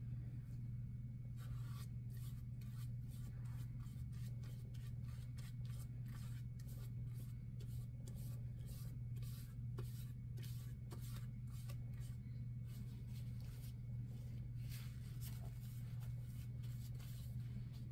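Flat paintbrush stroking thick paint across a plaque: a run of short scratchy brushing strokes, back and forth, over a steady low hum.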